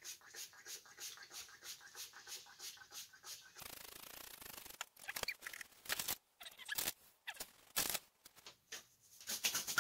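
Seasoning being sprinkled by hand over a tray of raw cauliflower florets, a quick scratchy shaking about four times a second that stops about three and a half seconds in. Then a short rustle and a few sharp clicks and knocks as spice containers are handled.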